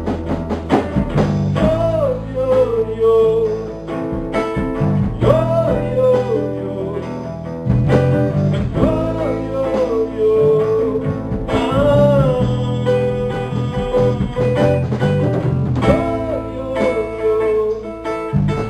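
Live acoustic band music: guitar over a low bass line, with a gliding melodic lead phrase repeating about every four seconds.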